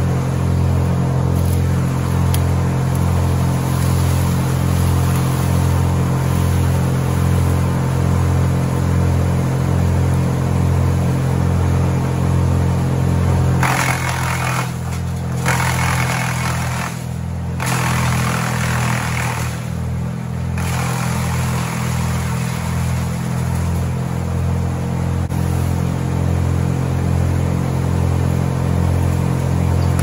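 Wood chipper's engine running steadily at a fixed speed, with a slow regular pulse. For several seconds around the middle the pulse quickens and the sound changes, then it settles back to steady running.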